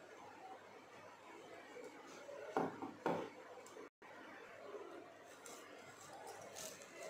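A hand mixing and kneading wet flour dough in a stainless steel bowl, with two louder knocks against the bowl about two and a half and three seconds in. The sound cuts out briefly about a second later.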